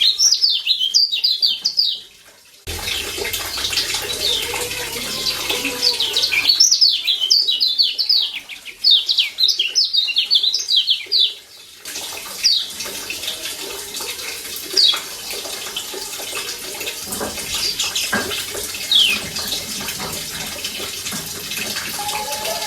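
Kecial kuning, the Lombok yellow white-eye (Zosterops), calling in fast chattering runs of high, downward-sweeping notes: one run at the start and another from about seven to eleven seconds in, then scattered single notes over a steady hiss.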